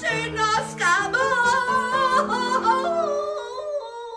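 A woman singing a revue song with vibrato to keyboard accompaniment. The sung phrase ends on a held note that fades out near the end.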